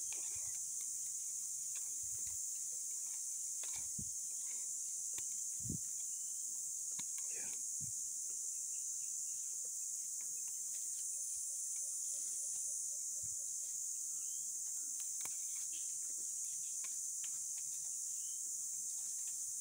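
Steady, high-pitched chorus of insects buzzing in the surrounding vegetation, with scattered faint clicks and a few soft low knocks.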